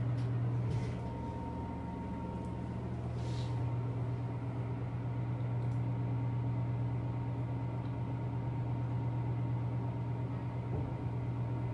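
Elevator car running, heard from inside the car: a steady low hum with a thin, faint whine above it and no other events.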